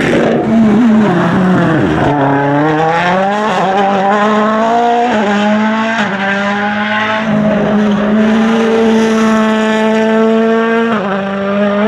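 A World Rally Car's 1.6-litre turbocharged four-cylinder engine, revving up about two seconds in and then held at high revs, with a few brief dips, until it drops away near the end.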